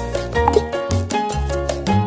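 Background music with a steady bass line, pitched chord notes and quick percussion hits.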